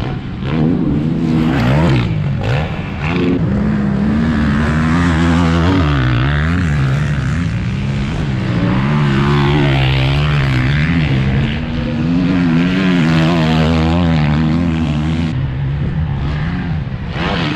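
Motocross bikes racing on a dirt track, their engines revving up and falling back as the riders work the throttle over jumps and turns, several bikes overlapping.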